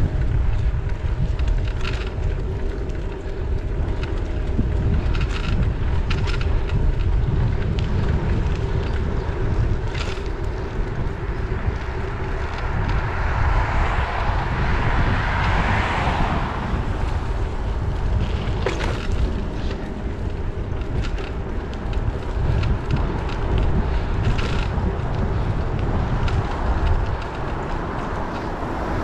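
Wind buffeting a bicycle rider's head-mounted action camera microphone, a steady low rumble, with a few light clicks and knocks. A vehicle passes about halfway through, swelling and fading over a few seconds.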